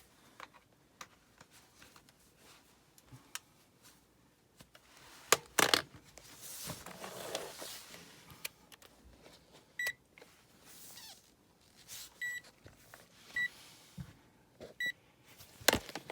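Digital multimeter being set to its capacitance (microfarad) range: sharp clicks from the selector dial and handling, and four short high-pitched beeps from the meter in the second half.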